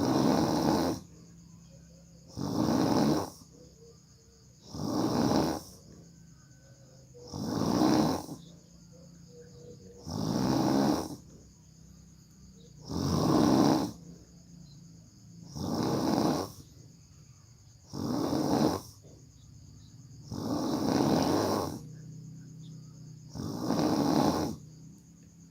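A sleeping person snoring heavily, one rasping snore about every two and a half seconds, each lasting about a second, with quiet breaths between.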